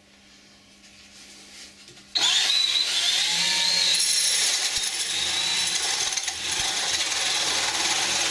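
Electric drill with a 40 mm spade bit starting up about two seconds in and running steadily with a high whine as it bores into a wooden board.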